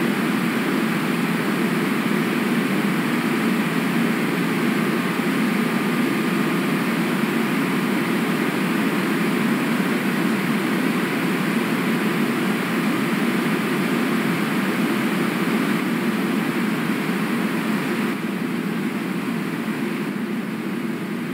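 Steady rush of river water picked up by an outdoor webcam microphone, even and unbroken, easing slightly near the end.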